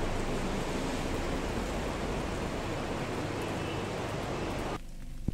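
Steady rushing of a fast mountain river running over rocks. It drops away abruptly near the end.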